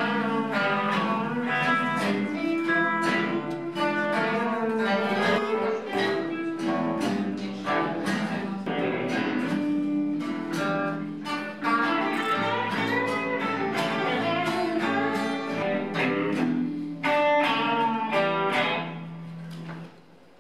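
A small ensemble of acoustic guitars and other plucked string instruments plays a tune together, strumming and picking. The playing stops shortly before the end.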